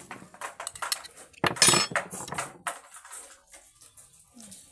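A spoon clinking and scraping against a dish or glass in a series of short knocks, with a louder clatter about a second and a half in.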